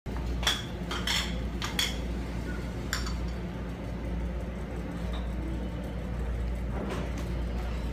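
A hibachi chef's metal cooking utensils clinking, with a handful of sharp, ringing strikes in the first three seconds over a steady low hum.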